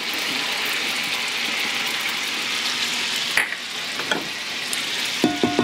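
Pan gravy of butter and meat drippings bubbling and sizzling hard in a stainless steel skillet, with a single sharp click about three and a half seconds in. Near the end a short run of steady tones starts up.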